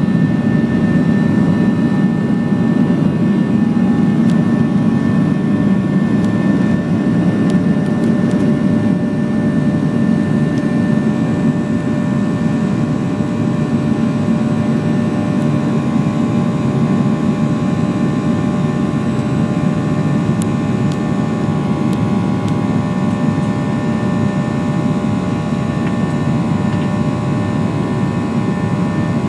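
Cabin noise of a Boeing 737-800 at takeoff power through liftoff and climb-out: a steady engine roar from its CFM56-7B turbofans, with several held whining tones above it, a little quieter after about twelve seconds.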